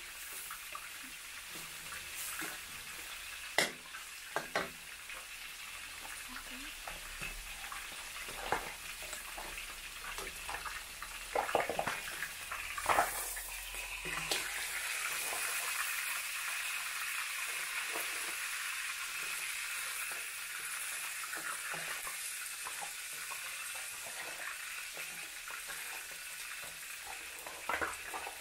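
Chilli paste frying in a stainless-steel wok: a steady sizzle, with a metal ladle scraping and knocking against the pan. About halfway through there is a cluster of clatters as whole mud crabs go into the wok, after which the sizzle is louder.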